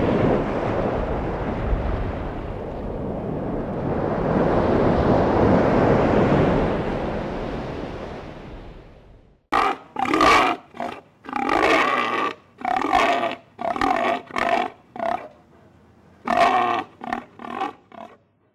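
A steady rushing noise, then, about halfway through, a pig squealing and grunting in about a dozen short, loud calls.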